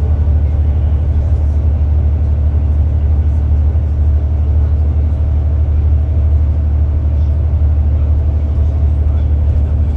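Alexander Dennis Enviro 400 MMC double-decker bus at speed, heard from inside the passenger saloon: a loud, steady, deep drone of engine and road noise with no change in pitch.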